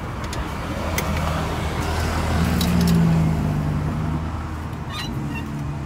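A motor vehicle engine going by, swelling to its loudest about three seconds in and then fading, over a low steady hum. A few light clicks of espresso gear sound over it.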